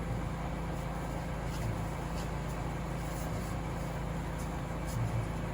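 Steady low hum of a running suction machine's pump, with a faint steady tone over it.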